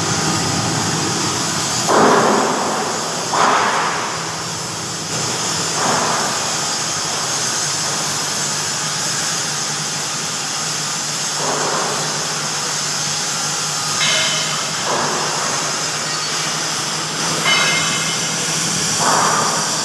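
Steady machine noise with a low hum, broken by about eight brief louder swells.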